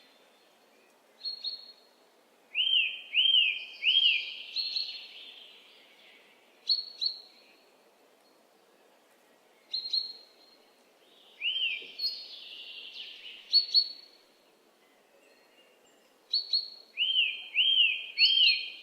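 A songbird calling in bursts every few seconds. Each burst holds phrases of three quick arched whistled notes and short sharp higher chirps, over faint background noise.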